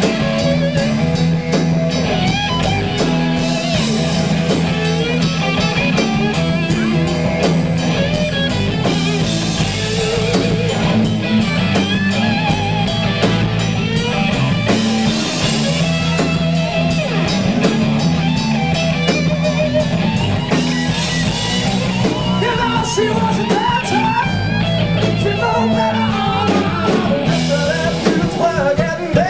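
Live rock band playing: electric guitar over drum kit and steady low bass notes.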